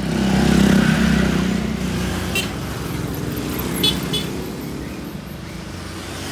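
Road traffic: a motor vehicle's engine running close by, a steady low hum that is loudest in the first two seconds and then eases. A few short sharp sounds come about two and a half and four seconds in.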